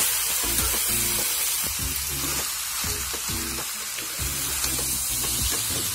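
Masala-coated chicken pieces sizzling steadily as they fry in a kadai at the end of the kasha (dry-frying) stage, with background music throughout.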